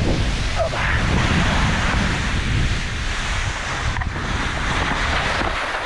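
Wind buffeting the microphone, a loud steady rush with a fluttering low rumble.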